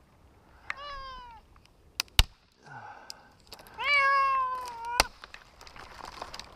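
A cat stranded up a tree meowing twice: a short falling meow about a second in, then a longer, louder one around four seconds. Two sharp clicks fall between and at the end of the second meow, the first of them the loudest sound.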